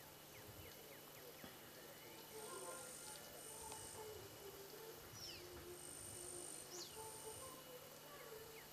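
Insects buzzing in four high bursts, each under a second long, with a few faint whistled bird calls and short falling chirps between them.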